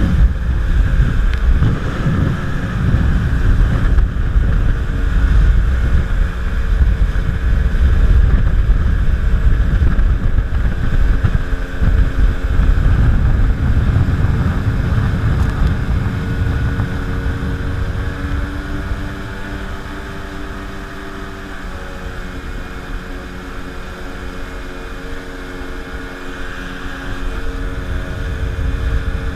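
Jet ski engine running at speed while towing an inner tube, with rushing water spray and wind buffeting the microphone. About two-thirds of the way through, the wind and spray noise drop and the engine's steady hum comes through more clearly, then the noise builds again near the end.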